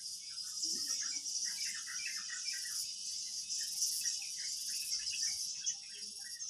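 Steady high-pitched insect chorus with small birds chirping in quick, repeated notes over it.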